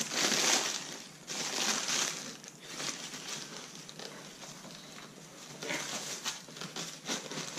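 Tissue paper rustling and crinkling as it is folded back off a pair of shoes in a cardboard shoe box, in several spells, loudest in the first couple of seconds and again near the end.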